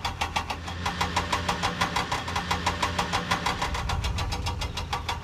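Cartoon vehicle engine sound effect: a steady, rapid chugging of about eight beats a second over a low rumble.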